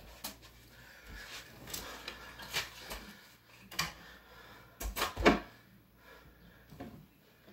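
Scattered knocks, clicks and rustles of someone moving about and handling things on a bedside shelf, with a cluster of louder thumps about five seconds in.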